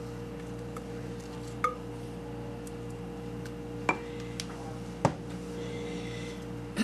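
Wooden spoon spreading thick cake batter in a heavy baking dish, knocking against the dish with four short, sharp clinks, over a steady low hum.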